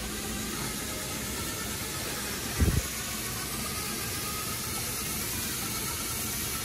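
Cordless drill spinning a scrub brush against pool waterline tiles: a steady whirring hiss, with one low thump about two and a half seconds in, cutting off near the end.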